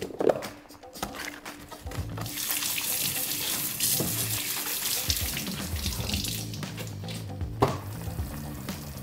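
Kitchen faucet running onto green onions being rinsed in a stainless steel sink; the water starts about two seconds in and stops a little before the end. There is a sharp snap near the start and a single knock near the end, with soft background music throughout.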